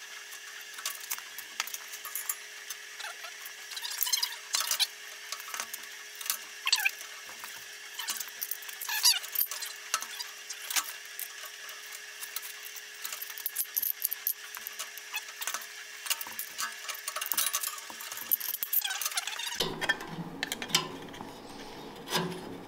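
Thin sheet metal being bent and worked by hand in a bench vise: irregular metallic scraping and crinkling clicks, with a few short squeaks. A faint steady hum sits under it until near the end, where the background changes and a few light knocks follow as the formed piece is handled.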